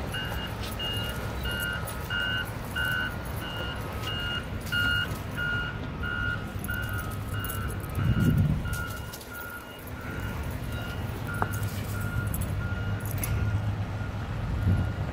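Construction vehicle's reversing alarm beeping steadily at one pitch, about twice a second, over a low engine rumble.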